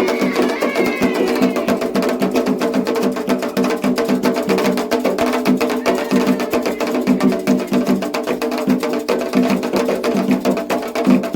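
Candomblé ketu ritual music for Xangô: fast, steady hand-drumming on atabaque drums with sharp, dense percussion strokes, carrying on without a break.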